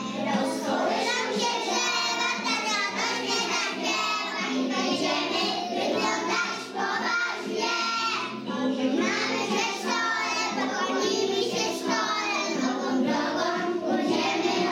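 A group of young preschool children singing a song together, without a break.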